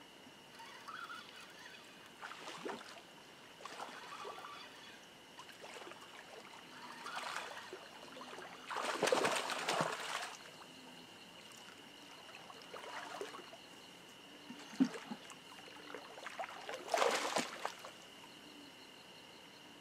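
A hooked catfish splashing at the water's surface in a run of bursts, loudest about nine seconds in and again near seventeen seconds. Under it runs a steady high-pitched insect trill.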